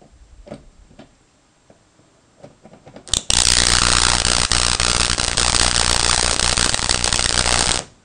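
A 2000-volt microwave oven transformer's secondary lead arcing across an eighth-inch gap to the E-core: a loud, steady electric arc with a mains buzz. It starts suddenly about three seconds in and cuts off suddenly near the end. A sustained discharge like this shows the transformer is working.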